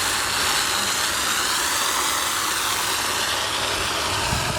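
Steady rushing hiss of water spraying while window screens are washed, with some low rumble underneath.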